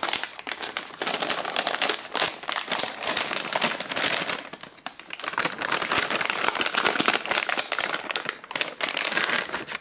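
A ration entree pouch being slid into the bag of a flameless ration heater: dense crinkling of the packaging, with a short lull about halfway through.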